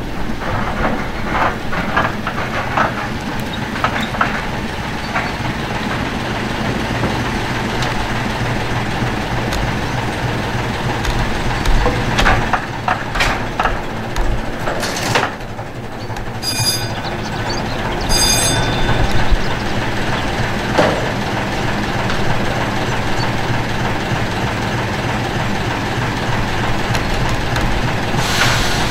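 Vulcan Foundry 0-4-0 diesel shunter running steadily as it slowly draws two 1959 Northern Line tube-stock driving trailers along the track, with wheel clicks over the rails. Two short shrill tones come about a second and a half apart, a little past the middle.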